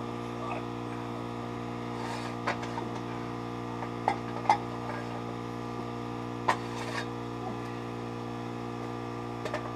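Steady electrical hum with a few light knocks and clunks as a wooden block and steel jack stands are handled.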